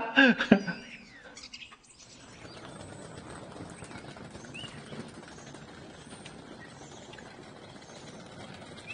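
Steady outdoor rush with a few faint, short bird chirps.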